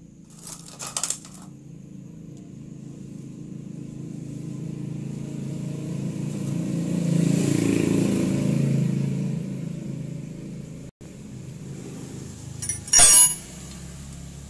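A motor vehicle passes by, its engine rumble swelling to a peak in the middle and fading away. Metal tools clink briefly about a second in and again, louder, near the end.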